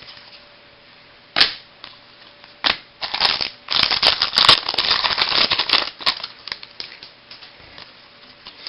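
Baseball trading cards being handled: two sharp clicks, then about three seconds of dense rustling and crinkling, then a few light clicks.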